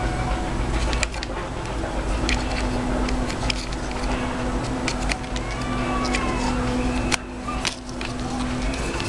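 Scattered small plastic clicks and taps of a mobile phone's casing and parts being handled and fitted back together, over a steady background hum with a steady tone from about two seconds in until near the end.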